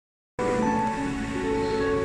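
Small choir singing, several voices holding overlapping steady notes in harmony and moving from note to note, starting abruptly about a third of a second in.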